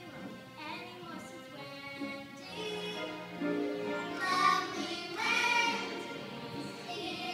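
A song with children's voices singing over musical accompaniment, swelling louder about halfway through.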